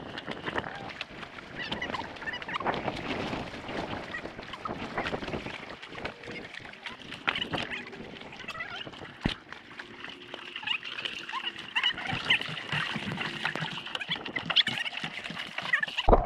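Seawater sloshing and splashing against rocks and a stand-up paddleboard as it is worked along the rocky edge, with scattered knocks and a sharp knock about nine seconds in.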